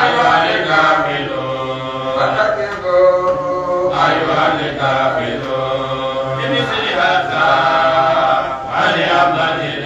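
A man chanting Islamic religious recitation through a microphone, in long, melodic held phrases that break briefly about four and nine seconds in.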